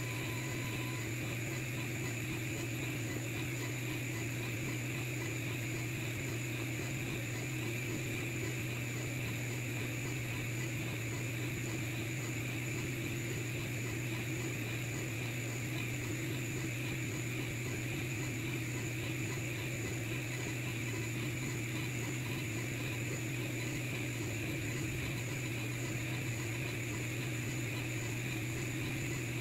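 Longer Ray 5 10 W diode laser engraver running a job: a steady machine hum with no change in pitch or level.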